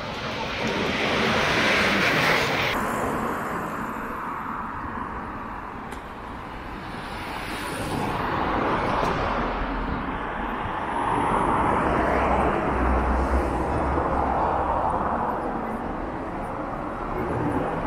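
City road traffic: cars passing one after another, their engine and tyre noise swelling and fading several times over a low rumble.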